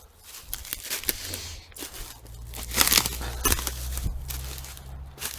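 Footsteps pushing through dry undergrowth, twigs and leaves crunching and crackling in irregular snaps, loudest about three seconds in. A low rumble on the microphone sets in about two seconds in.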